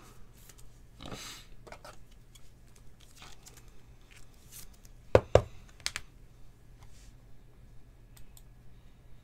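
Trading cards being handled and slid into clear plastic sleeves: light rustling and scattered clicks of plastic and card stock, with two sharp clicks close together a little over five seconds in.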